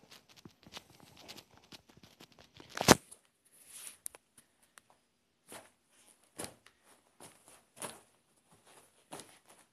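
Feet in Nike sneakers stepping and stomping on a pile of sneakers on carpet: a string of separate dull thumps with scuffing between them, the loudest about three seconds in.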